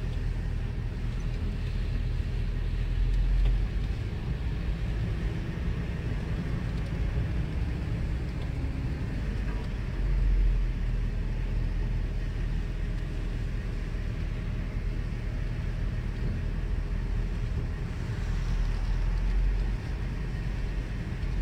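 Car cabin noise while driving: a steady low rumble of engine and tyres on the road, heard from inside the vehicle, swelling slightly now and then.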